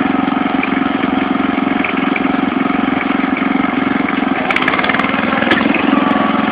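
Ariens riding lawn mower engine running steadily with an even, rapid firing pulse as it is driven. A few sharp clicks come about four and a half to five and a half seconds in.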